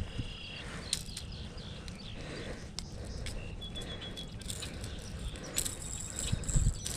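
Birds chirping over outdoor background noise, with a few sharp clicks and rustles from handling a hooked bass and its lipless crankbait, and a couple of low thumps near the end.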